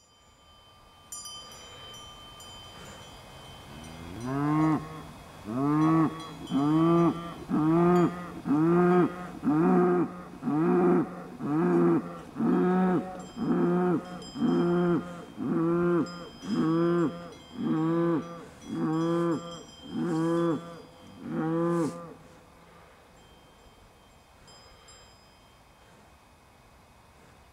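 A cow lowing in a long series of short, evenly repeated calls, about one a second, each swelling and falling in pitch. They start about four seconds in and stop near the end. Faint cowbells ring steadily underneath.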